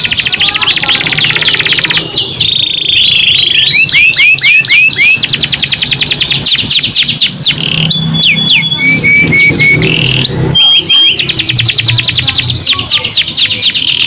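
Domestic canaries singing non-stop: long rolling trills made of rapid falling whistled notes repeated many times a second, switching every second or two to a new phrase, with a few short held whistles in between.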